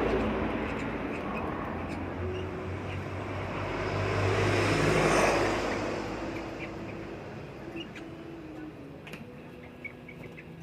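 Motor vehicle passing by: engine and road noise loud at first, swelling again to a peak about five seconds in, then fading away. A few faint short chirps near the end.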